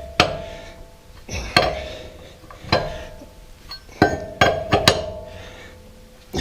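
A wrench clinking and knocking on the wheel's lug nuts as they are checked for tightness: about eight sharp metal knocks, several leaving a short ringing tone.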